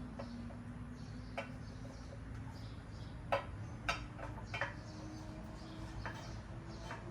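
Scattered sharp metallic clicks and clinks of strut parts being handled and seated in a spring compressor, about half a dozen spread over several seconds, over a faint steady hum that rises slightly in pitch.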